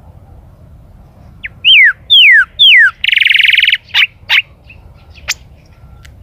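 Chalchalero singing: three loud, clear whistles, each sliding downward, then a buzzy trill and a few short notes, with a sharp short call near the end.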